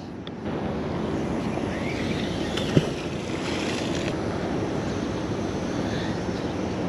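Steady wind rushing over an action-camera microphone, with one short sharp knock about three seconds in.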